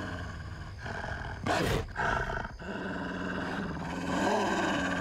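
A large wolf-like dog growling in a low, wavering snarl, with a loud sudden burst of sound about a second and a half in.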